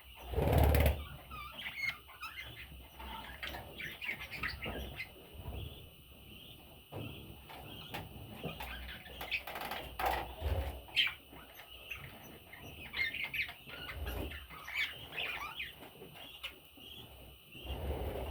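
Pet budgerigars chirping and chattering in short, scattered calls, with a loud burst of wing flapping about half a second in and a few softer flutters later.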